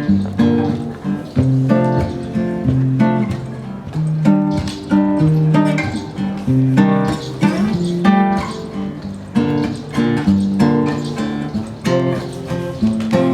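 Solo acoustic guitar playing a rhythmic instrumental intro, plucked chords and bass notes in a steady beat.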